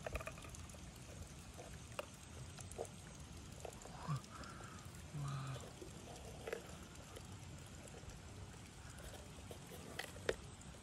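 Faint steady outdoor background with a few light taps and clicks on a clear plastic container as a finger prods it, two of them close together near the end. Two short, low voice-like hums come about four and five seconds in.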